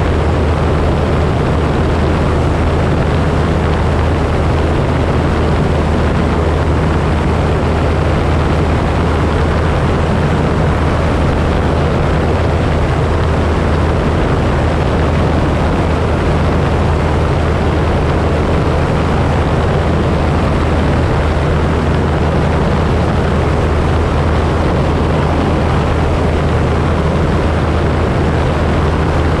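Engine and propeller of a high-wing single-engine light aircraft droning steadily in flight: a constant low hum under a steady rushing hiss.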